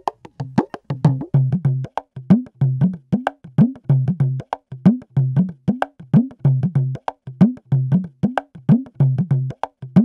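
Dimdi frame drum played in a fast, steady rhythm: sharp slaps with a jingle edge alternate with low ringing strokes, some of which bend upward in pitch.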